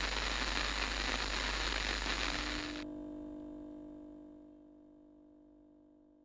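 Sound-design soundtrack: a dense, even hiss of noise cuts off suddenly about three seconds in. It leaves a soft chord of a few steady low tones that fades away to silence.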